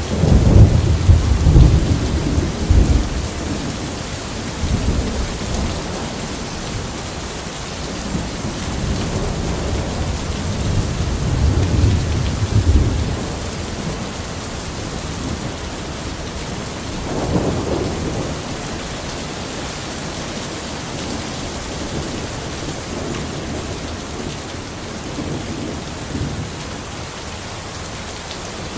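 Steady heavy rain with thunder rolling in several low rumbles. The loudest peal comes right at the start and lasts a few seconds, more roll in through the first half, and a shorter rumble comes later. The rain keeps on after the thunder fades.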